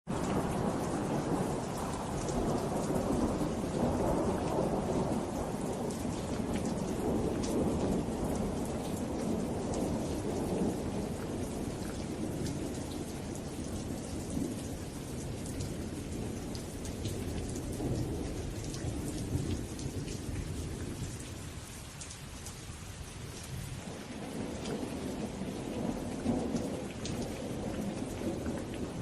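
Steady rain with a fine patter of drops, under a low rolling rumble of thunder that swells and fades, easing for a while about three-quarters of the way through.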